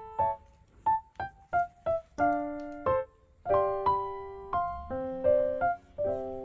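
Background music: a piano playing a light melody. It begins with single notes and moves into fuller chords, ending on a chord that rings and fades.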